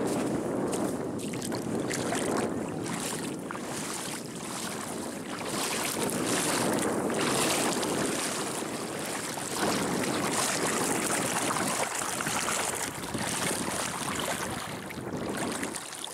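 Shallow lagoon water splashing and washing around feet wading in, with wind on the microphone.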